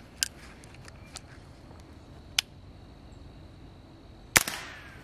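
A single suppressed .22 LR shot from an AR fitted with a CMMG .22 LR conversion kit, near the end, followed by a short falling whine that the shooter takes for the bullet ricocheting. Before it come a couple of sharp metallic clicks from handling the rifle.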